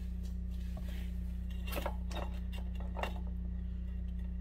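Small metal tools and parts clinking on a shop floor: about five light clicks and taps scattered over a few seconds. A steady low hum runs underneath.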